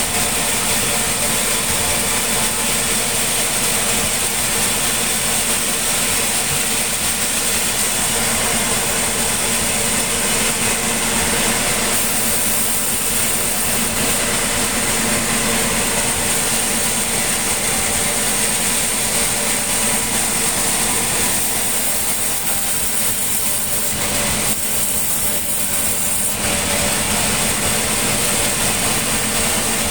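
Engine-driven sawmill machinery running steadily with a constant high whine, shifting a little in tone partway through.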